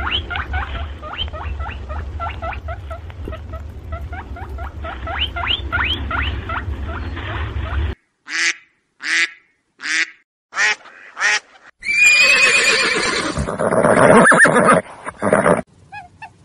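Animal calls in a run of separately cut clips. First comes a rapid series of short, high, pitched calls for about eight seconds. Then about five separate calls follow with silence between them, and then one loud, drawn-out call.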